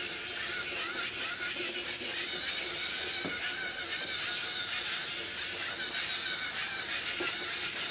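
LEGO NXT robot's servo motors and plastic gear trains running steadily as it drives along the line, a continuous mechanical whirr.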